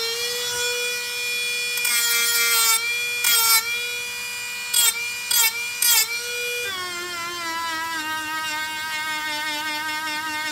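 Cordless Dremel rotary tool spinning at high speed with a steady whine, a felt polishing wheel buffing scoring out of an engine timing cover's crankshaft seal bore. Several brief harsh scuffing bursts come as the wheel bears on the metal, and about two-thirds of the way through the whine drops to a lower pitch.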